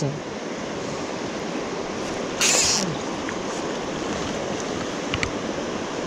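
Shallow mountain stream rushing over rocks and small rapids, a steady rush of water. About two and a half seconds in, a brief sharp hiss lasts about half a second.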